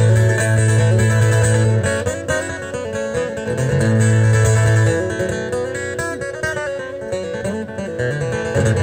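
Amplified acoustic guitar playing an instrumental break in a song, held low notes ringing under the higher melody notes.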